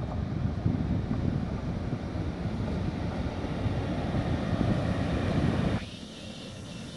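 Low rumbling noise of an ÖBB class 1116 Taurus electric locomotive hauling a Railjet through the station, mixed with wind on the microphone. The rumble drops away suddenly about six seconds in.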